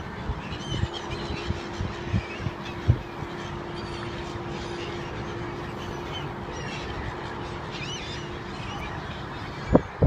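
A flock of gulls calling, with scattered short high cries over a steady low hum. Several low thumps come in the first few seconds and a louder one near the end.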